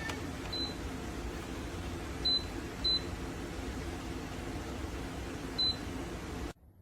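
Four short, high electronic beeps, like button presses on a digital appliance or meter, over a steady low hum. The hum cuts out abruptly near the end.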